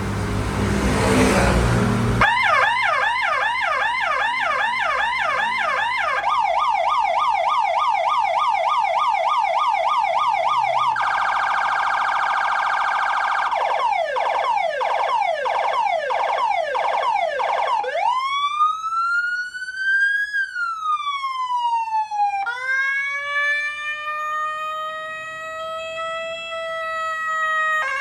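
Electronic emergency-vehicle siren stepping through its tones. It opens with fast repeated sweeps (yelp), changes to a quick steady warble about 11 seconds in, goes back to fast sweeps, and from about 18 seconds in plays a slow rising and falling wail. A short burst of noise comes before the first tone.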